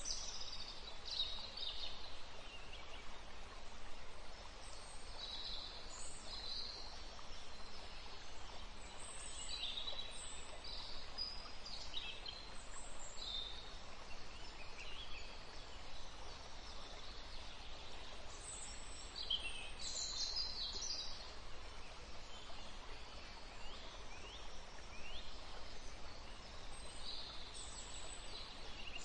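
Birds calling on and off: many short, high-pitched chirps and calls, some gliding in pitch, over a steady low hum.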